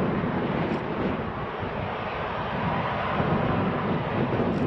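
Boeing 737-600's CFM56 jet engines running at taxi power: a steady rushing jet noise with a fluttering low rumble.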